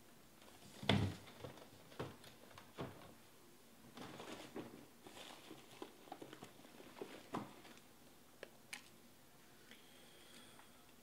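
Faint handling noises in a small room: a sharp knock about a second in, then scattered clicks and soft rustling, with two crisp ticks near the end.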